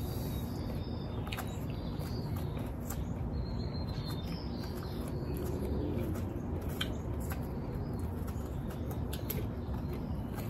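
Outdoor ambience: a steady low background rumble with faint bird chirps now and then, and a few light clicks and taps scattered through.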